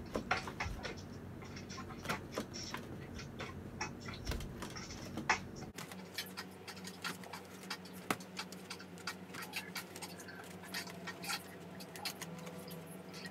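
Scattered light taps, knocks and scratches as a wooden folding chair is gripped and shifted during a workout. A faint low steady hum comes in about six seconds in.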